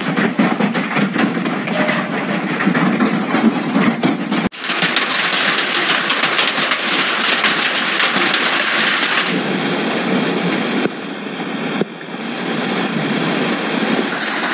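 Hailstones pelting down with heavy rain, a dense clatter of many small impacts. The sound changes abruptly twice, about four and a half seconds in and about nine seconds in.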